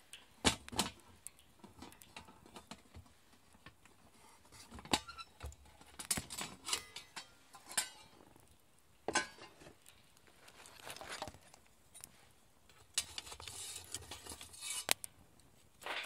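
Sticks of compressed sawdust charcoal (ogabinchotan) clinking and knocking against an aluminium pot as the pot is handled and set down, a string of irregular sharp clinks.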